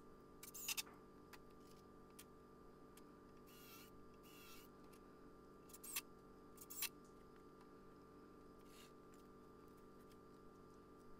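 Near silence: a faint steady hum with a few brief, faint clicks, about a second in and twice around two-thirds of the way through.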